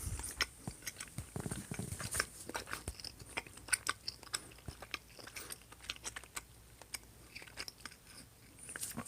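A person chewing a piece of chicken in curry sauce close to the microphone: irregular wet mouth clicks and smacks.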